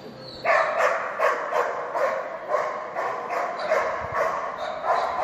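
Dog barking rapidly and repeatedly, about three barks a second, starting about half a second in.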